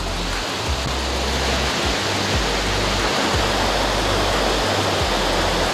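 The Rhine Falls, a large river waterfall, making a dense, steady rush of falling water, close by. Low bass notes of background music sit under it.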